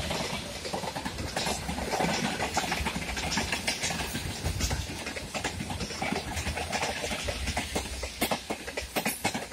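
Freight train wagons rolling past: tank cars and then open-top gondola wagons. Their wheels rumble steadily on the rails, with a stream of clicks and knocks from the wheels crossing rail joints, and the knocks grow sharper near the end.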